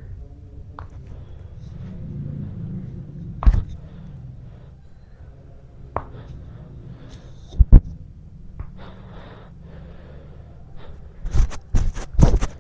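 Sharp thuds and cracks of a hands-on chiropractic adjustment: one a few seconds in, a close pair about halfway that is the loudest, and a quick cluster near the end, over a steady low room hum.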